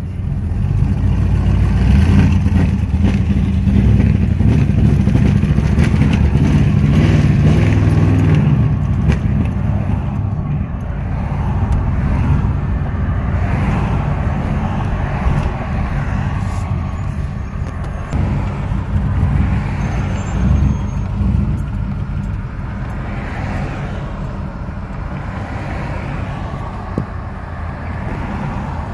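1997 GMC 5.7-litre V8 engine running, louder for the first several seconds and then settling to a steady run, with the misfire that the owner says sets in once the engine warms up.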